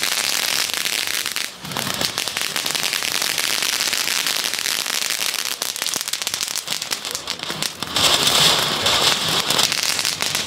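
Category F1 youth fireworks going off together: a dense, continuous crackle of many small pops. A small ground fountain sprays sparks, and a louder hiss joins about eight seconds in.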